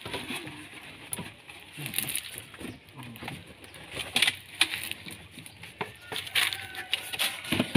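Irregular knocks, scrapes and cardboard rustling as a glass-and-aluminium popcorn machine cabinet is pushed into a car's cargo area and packed around with cardboard.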